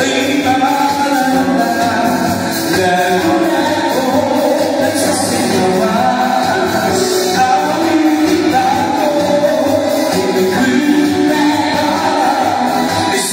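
A performer singing into a microphone over amplified backing music.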